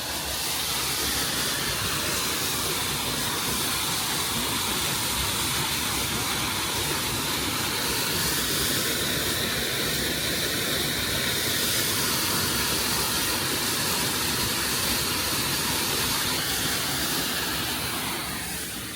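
Düden Waterfall: falling water rushing in a loud, steady noise. It swells about a second in and eases off near the end.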